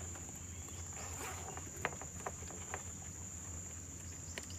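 Insects buzzing steadily at one high pitch over a low steady hum, with a few soft clicks.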